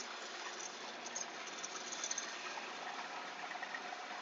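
Shopsmith headstock motor running steadily at slow speed with the conical sanding disc spinning free, no knife against it. A few light clicks and rattles from the metal sharpening jig being lifted away and handled.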